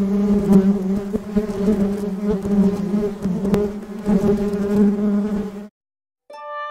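A flying insect buzzing steadily, then cutting off abruptly near the end. Plucked string music starts just after.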